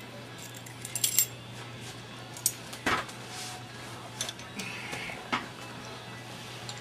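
Metal tools and engine parts clinking and knocking while the engine is worked apart: a string of sharp clinks, the loudest knock about three seconds in, over a steady low hum.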